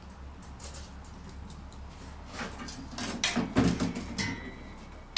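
Storage room door being opened: a run of clicks and knocks about two and a half seconds in, the loudest a heavy thump, then a faint thin squeal near the end.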